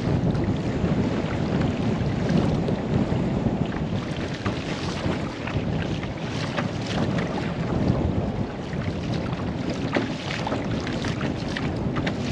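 Wind rumbling on the microphone, with small splashes and water lapping as a kayak is paddled.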